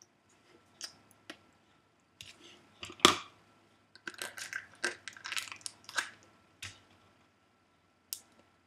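Crinkly packaging being handled and unwrapped by hand, crackling in irregular bursts, with one sharp crack about three seconds in and a dense run of crinkling a second later.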